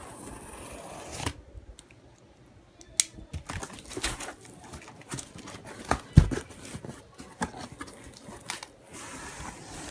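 Packaging being torn open and handled: tearing and crinkling of paper or plastic, scattered clicks and rustles, and one heavy thump about six seconds in.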